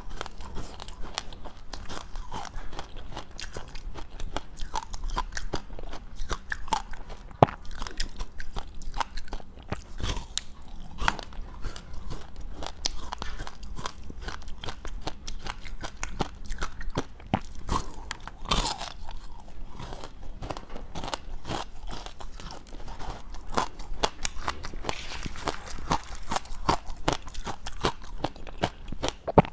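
Chewing and crunching of dry, powdery freezer-frost ice: a continuous run of crisp, crackly crunches, with one sharper snap about seven seconds in.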